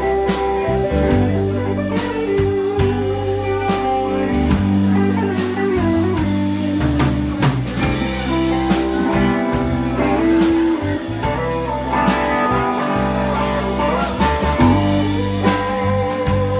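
Live band playing: electric guitars over bass and a drum kit, with held guitar notes and a steady drum beat.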